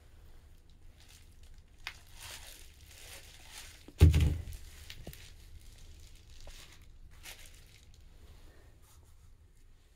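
Handling noise from a plastic tub holding a frozen block of ice: crinkly rustling and scraping for a couple of seconds, then one heavy thump about four seconds in as the tub is tilted, followed by fainter knocks and rubs.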